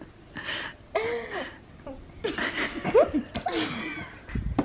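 People laughing in about four short bursts.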